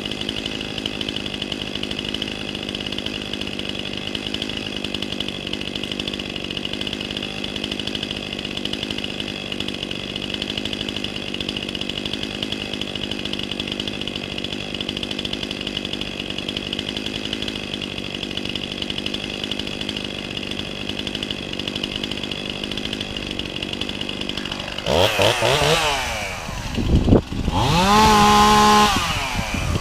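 Chainsaw running steadily at high speed. About 25 seconds in it gets louder, and the engine speed swings down and up several times before the end.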